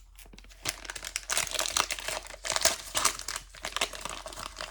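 Plastic wrapper of a Panini Prizm football trading-card pack crinkling as it is handled, a dense run of irregular crackles that starts a little under a second in.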